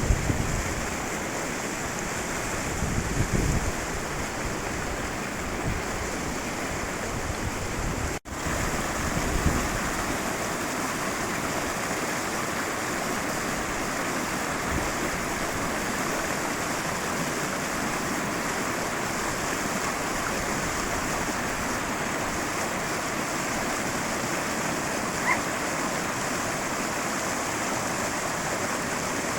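High-mountain river rushing steadily, a constant roar of flowing water. The sound drops out for an instant about eight seconds in.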